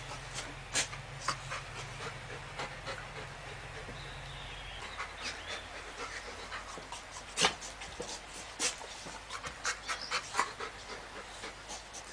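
A dog panting, with scattered short clicks and snuffly noises at irregular intervals; the loudest comes about seven and a half seconds in.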